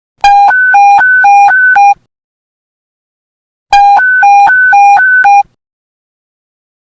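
Police panic-button alert tone: a two-tone warble that rapidly alternates between a low and a high beep, about four changes a second. It sounds in two bursts of under two seconds each, with a gap of similar length between them.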